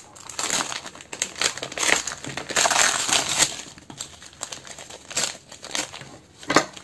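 Paper gift wrapping being unrolled and unfolded by hand, crinkling steadily and loudest around the middle, then a few separate sharp crackles near the end.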